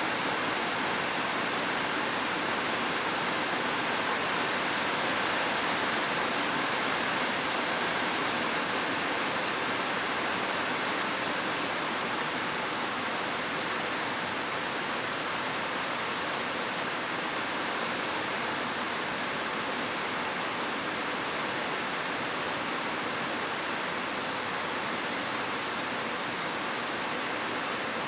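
Heavy rain falling, a steady even hiss with no separate drops or changes.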